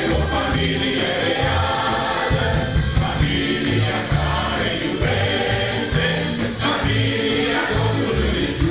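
A large congregation singing a worship song together, with loud amplified instrumental accompaniment through a PA.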